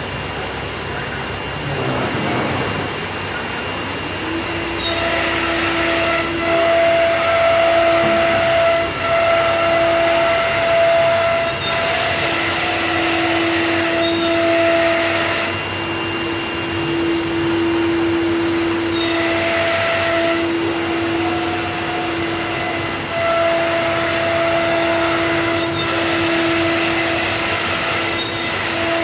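C.R. Onsrud CNC router running: over a steady rushing machine noise, a steady high whine comes in about five seconds in and holds, with stretches of louder hiss on top.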